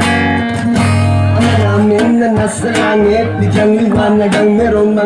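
Live music: an acoustic guitar strummed under a sung vocal line.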